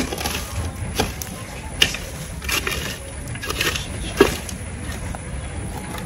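Dry palm fronds and brush crunching as they are gathered and pushed onto a smouldering debris pile, with irregular sharp snaps about once a second.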